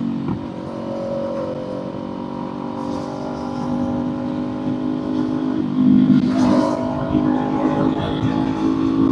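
Kawasaki Z400's parallel-twin engine running under way, heard from the rider's seat. It pulls harder about six seconds in, its note getting louder and fuller.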